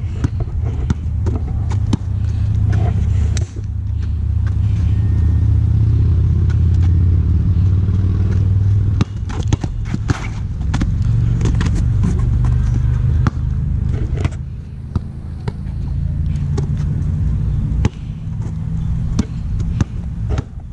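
Basketball being dribbled on a plastic tile court: repeated sharp bounces with shoe scuffs, over a steady low rumble that is strongest in the first half.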